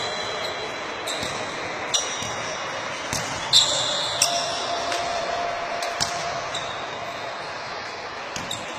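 A basketball bouncing on a hard gym floor a few times at uneven intervals, each bounce with a short high ring, over steady hall noise.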